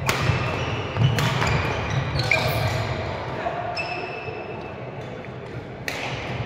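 Badminton rally: racket strikes on the shuttlecock roughly every one to one and a half seconds, with court shoes squeaking on the hall floor between the hits.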